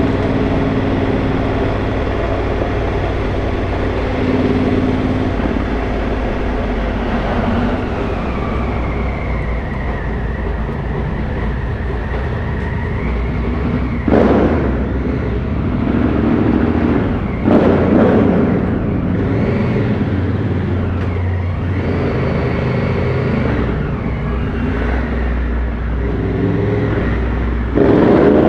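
Adventure motorcycle's engine running while riding a gravel road. From about halfway, inside a rock tunnel, the engine comes in several louder surges.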